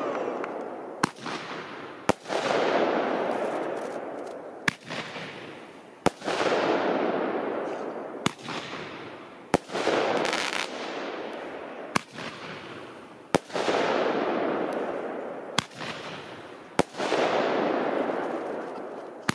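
Aerial fireworks going off in a steady sequence: sharp bangs come about every second and a half, and every second bang is followed by a loud rush of noise that fades over two or three seconds, as in a launch followed by a shell bursting overhead.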